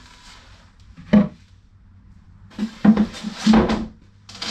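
Plywood boat bulkheads being lifted and shifted by hand: one sharp wooden knock about a second in, then a cluster of knocks and scraping about three seconds in, and a short scrape near the end.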